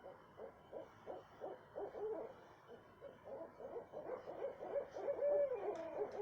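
Owl calling a rapid series of short hoots, about three to four a second, ending with a longer drawn-out note that rises and then falls.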